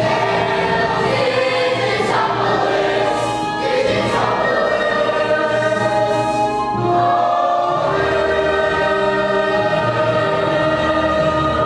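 A young musical-theatre cast singing together as a chorus, with long held notes.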